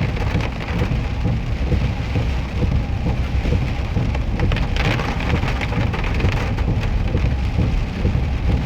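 Heavy rain pelting down in a dense patter of drops, over a steady low rumble.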